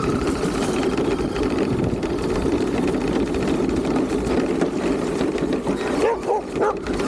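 Camera-mounted RC car driving over dirt and dry leaves, its motor and wheels making a steady low rumble, with dogs chasing it and a few short barks near the end.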